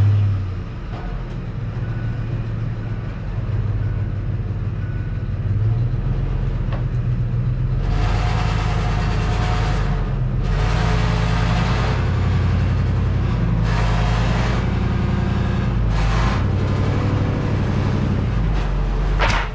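A pickup truck engine running steadily under load as the truck drives forward out from under a round hay bale strapped and chained to a pallet, pulling the bale off its bed. From about 8 seconds in, several bursts of scraping and crunching come as the bale drags off the truck and lands on the wooden pallets.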